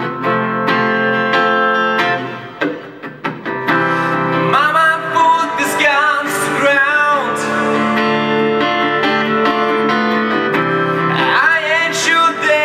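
A man singing into a microphone while strumming an acoustic-electric guitar. The guitar plays alone at first, with a brief quieter stretch about two seconds in; the voice comes in at about four and a half seconds, pauses, and comes back near the end.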